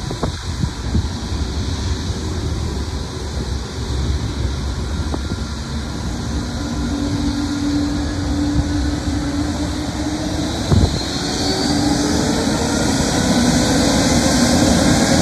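Airbus A320neo's Pratt & Whitney geared turbofan engines spooling up for takeoff: a low rumble with several whining tones that rise slowly in pitch and grow louder through the second half. Wind buffets the microphone, and a short thump sounds about eleven seconds in.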